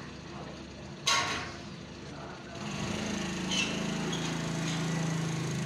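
A short sharp noise about a second in, then from about two and a half seconds a motor starts a steady, even hum that keeps running.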